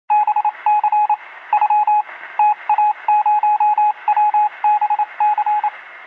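Morse-code-style telegraph beeping: a single high tone keyed on and off in quick short and longer pulses, over a thin radio-like hiss.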